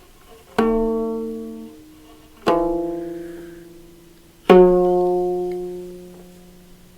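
Ethiopian stringed instrument plucked three times, about two seconds apart, each note ringing out and slowly fading.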